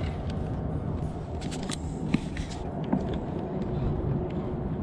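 Wind rumbling on the microphone, with scattered light clicks from a spinning reel being cranked to retrieve a lure; the sharpest click comes about two seconds in.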